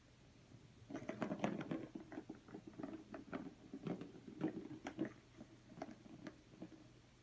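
A cat playing with a toy: a quick, irregular run of taps, scrabbles and rattles that starts about a second in and thins out near the end.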